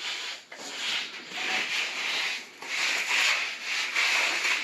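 Repeated scrubbing strokes rubbing across terracotta floor tile, cleaning mortar off the tile faces.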